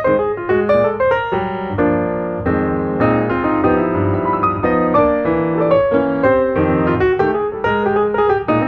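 Background piano music, a steady flow of notes with chords.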